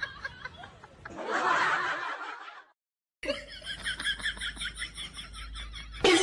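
Laughter in short, quick snickers, broken by a brief silent gap; just before the end a sudden short loud cry cuts in.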